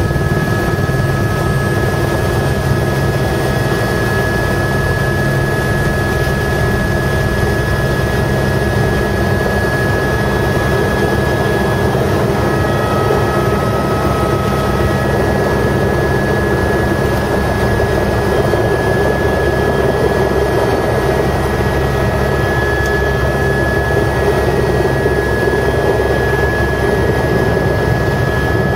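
Tour helicopter heard from inside the cabin during landing: a steady low drone with a thin, steady high whine over it, unchanging throughout.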